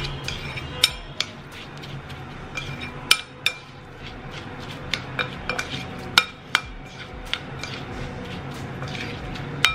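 A metal spoon stirring rice mixed with ghee and spices in a glass bowl, clinking irregularly against the glass with short ringing after each knock.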